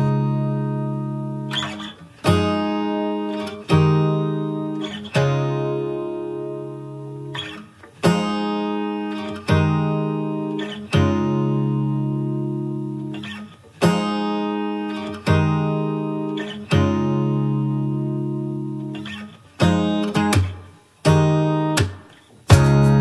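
Background music: acoustic guitar chords strummed about every one and a half seconds, some held longer, each ringing out and fading.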